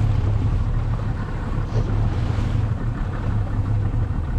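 A boat's motor running steadily, with wind buffeting the microphone and water noise.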